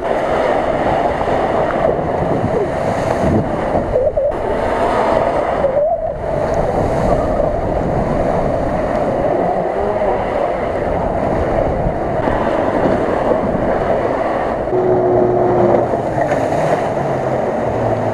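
Mitsubishi L200 pickup engine working hard while its tyres churn through mud and water, under a steady rush of wind on the microphone.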